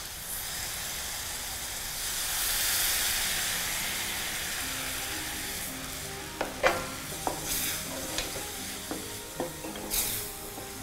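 Green chilli gojju mixture sizzling in a hot pan with tamarind water just poured in. The sizzle swells about two seconds in and then settles, and from about six seconds in a wooden spatula stirs and knocks against the pan.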